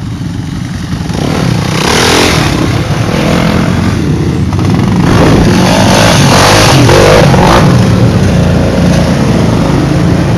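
ATV engine running and revving, with louder surges about two seconds in and again from about five to eight seconds.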